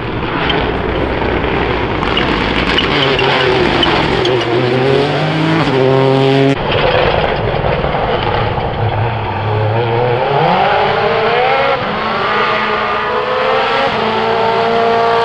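Rally1 rally cars' turbocharged engines at racing speed, pitch climbing and dropping repeatedly through gear changes and braking. Several cars pass one after another, with an abrupt cut from one to the next about six and a half seconds in.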